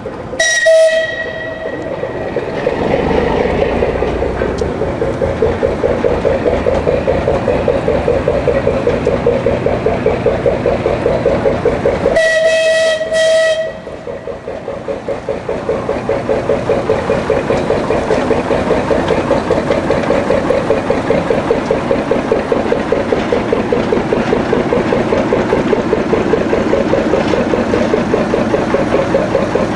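Small saddle-tank steam locomotive sounding a short whistle blast, then working along with steady exhaust chuffs, about three a second. A second, longer whistle blast comes about twelve seconds in.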